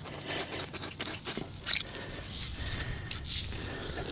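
Small metal hand tool scraping and scratching into hard, dry soil beside a grass sod plug, a few short irregular scrapes, with gloved hands pressing the dirt, over a low steady rumble.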